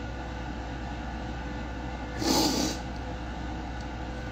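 A crying woman sniffs once, sharply through the nose, about two seconds in, over a steady background hum.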